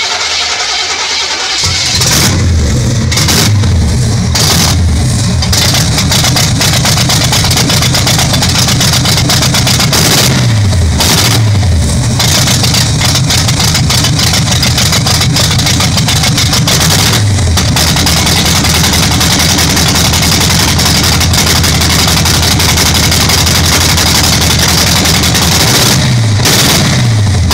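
A 1979 Camaro's carbureted small-block V8 running just after starting, blipped on the throttle again and again, the revs falling back each time. It has to be fed fuel to stay running, a sign it is starving for fuel, which the owner thinks needs adjustments to the Holley carburetor.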